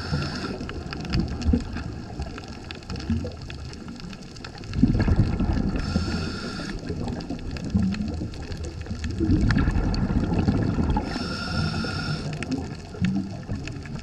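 Muffled underwater water movement picked up by a submerged camera: an uneven low rumble with gurgling. Three times a brief higher, layered tone rises above it for about a second.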